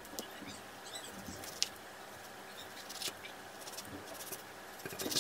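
A knife slicing raw meat on a wooden cutting board: faint, scattered taps and light clicks, with one sharper click about a second and a half in.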